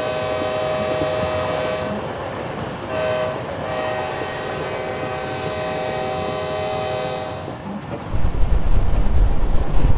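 Indian Railways train horn held for several seconds, with a brief break about two seconds in, stopping near the end. Then loud wind buffets the microphone over the rumble of the moving train.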